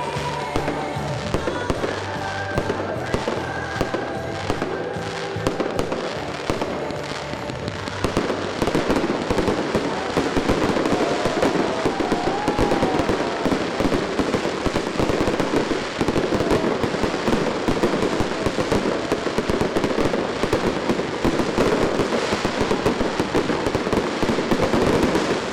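Music with steady notes, joined about eight seconds in by a dense, continuous barrage of fireworks: rapid bangs and crackles that get louder and cover the music.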